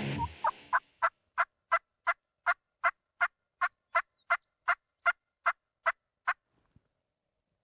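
Wild turkey yelping: a long, evenly spaced run of about seventeen short yelps, roughly three a second. The first few are lower and rise in pitch, and the run stops about six seconds in.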